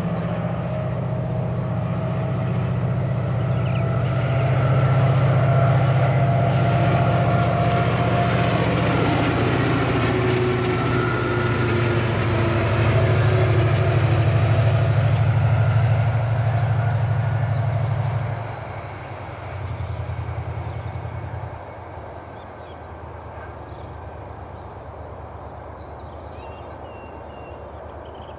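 A pair of Class 68 diesel locomotives running light: a deep, steady engine drone with thin whines above it. It swells twice, then falls away sharply about two-thirds of the way through as the locomotives draw off.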